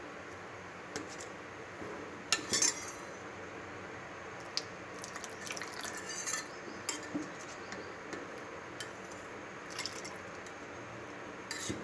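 A steel spoon clinking and scraping now and then against a steel pot of boiling milk as diluted vinegar is poured in from a glass bowl to curdle it, with liquid splashing and dripping, over a steady low hiss.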